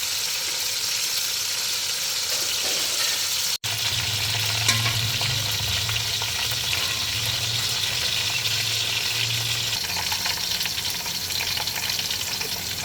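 Onions frying in hot ghee: a steady sizzle. It breaks off for an instant about three and a half seconds in and resumes, with a low hum underneath from then on.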